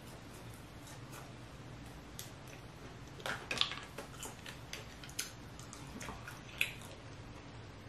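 Snow crab legs being eaten close to the microphone: scattered wet mouth clicks and slurps as the meat is sucked from the shells, with a cluster of sharper clicks about three and a half seconds in.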